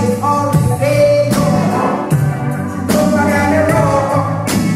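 Loud music with a singing voice and a steady beat, played through a sound system's stacked speaker cabinets.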